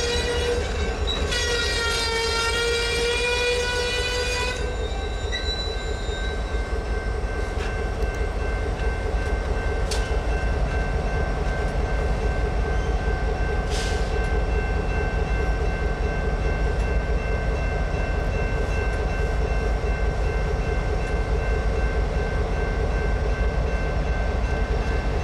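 A diesel freight locomotive's multi-note air horn sounds, pausing briefly near the start and then blowing again until about four and a half seconds in. After that, Canadian National diesel locomotives and their train rumble steadily past at low speed, with two sharp knocks near the middle.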